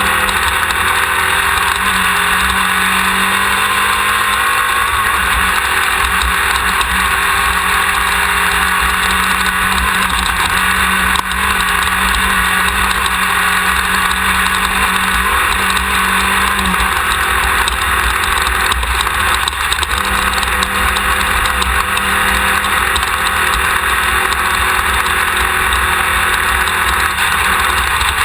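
Off-road race car engine running continuously, heard from a camera mounted on the car's rear, with a dense rush of wind and road noise and occasional knocks and rattles.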